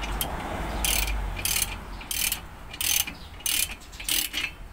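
Ratchet wrench worked back and forth on a bolt, its pawl clicking in a short burst on each return stroke, about six strokes at a steady pace of roughly three every two seconds.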